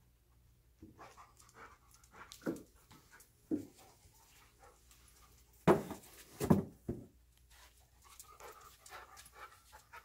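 A dog panting and breathing hard as it searches with its nose, in short irregular breaths, with two louder thumps about six seconds in.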